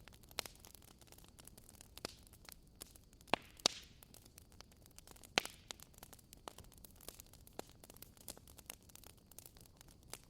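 Wood fire crackling: a soft steady hiss with irregular sharp pops and snaps, the loudest three coming at about three and a half and five and a half seconds in.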